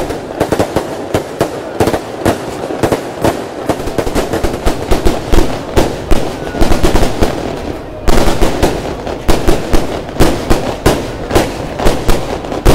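Fireworks going off in a rapid, irregular string of sharp cracks and bangs, several a second.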